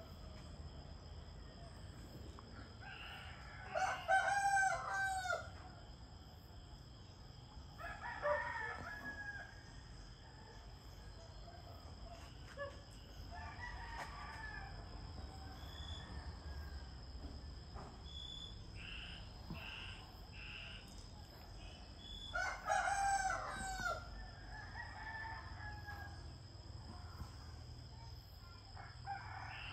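Roosters crowing: two loud, long crows about four seconds in and again near the end, with fainter crows and calls in between. A steady high insect drone runs underneath.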